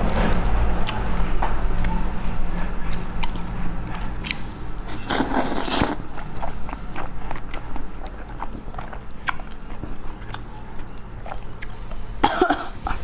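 A person eating noisily, with many short chewing and biting clicks. There is a loud, breathy burst lasting about a second around five seconds in, and a shorter one near the end.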